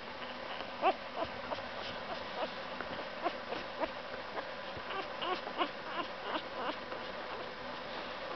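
Newborn Boxer puppy squeaking and whimpering while held in a hand: a string of short, high, rising squeaks starting about a second in and coming thickest near the middle and later part, over a faint steady hum.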